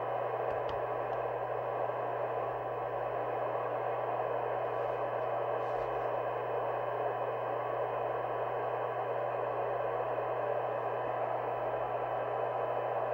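Harrier CBX FM CB radio's receiver playing a weak signal-generator test signal through its speaker: a steady hiss with a faint steady tone in it. The receive section is badly out of alignment, so a signal of a few microvolts sounds this noisy.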